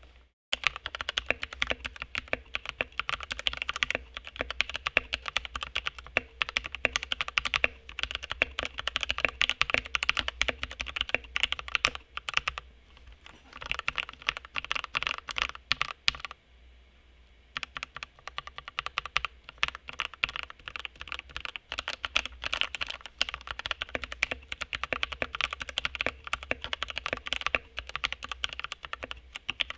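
Fast typing on a modded VortexSeries VX5 60% mechanical keyboard with lubed linear switches: a dense run of key strokes and bottoming-out clacks, with two brief pauses in the middle.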